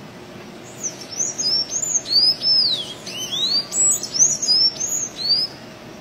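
Sanhaço tanager (Thraupis) singing a quick run of high, squeaky notes that arch and slide up and down, starting about a second in and stopping near the end.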